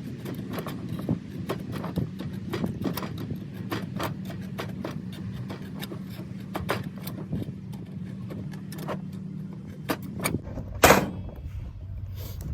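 Tin snips cutting notches into a 2-inch sheet metal band strap: a run of sharp, irregular metal snips and clicks. Under them is a steady low hum that stops about ten seconds in, and there is one louder metallic clank just before the end.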